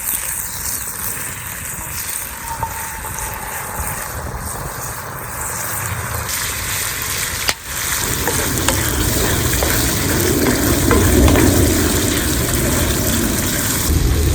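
Food sizzling and frying in a cast-iron skillet over a campfire. The sound breaks off for an instant about halfway through, then comes back louder and fuller.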